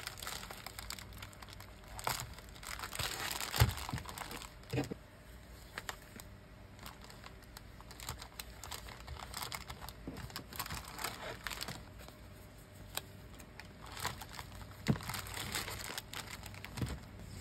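Plastic bubble mailer crinkling as it is folded shut, pressed flat and handled, with a sticker being peeled from its backing and pressed on. Irregular bursts of crackling with scattered sharp clicks, the sharpest a few seconds in.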